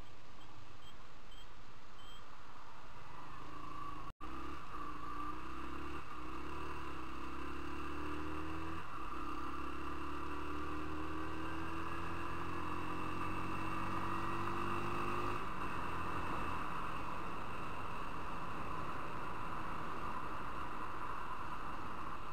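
Motorcycle engine accelerating away from a roundabout, its pitch rising through a few gear changes and then settling to a steady cruise, under constant wind and road noise. The sound cuts out for an instant about four seconds in.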